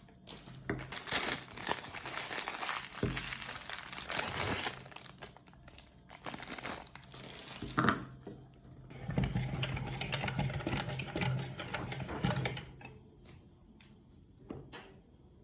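Crinkling and crackling for several seconds, then an electric meat grinder's motor running with a steady hum for about three seconds as it grinds ice cream. A few light clicks follow near the end.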